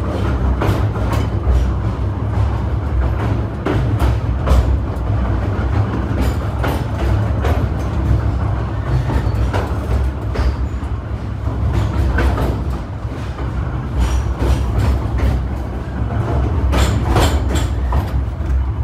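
Cumbres & Toltec narrow-gauge steam train rolling through a rock tunnel: a steady low rumble of the cars with irregular clicking and clacking of the wheels over the rails.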